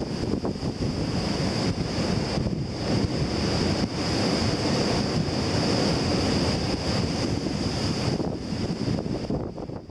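Gusty tropical-storm wind buffeting the microphone in a loud, rushing roar that rises and dips with the gusts.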